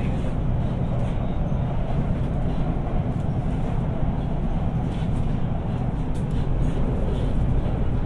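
Guangzhou Metro Line 3 B2-series subway car running, heard inside the car: a steady, deep rumble of wheels on rail and traction equipment, with faint clicks over it.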